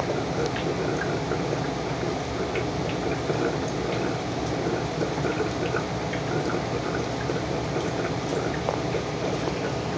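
Steady bubbling and trickling of water in a small aquarium, with many small drips and pops.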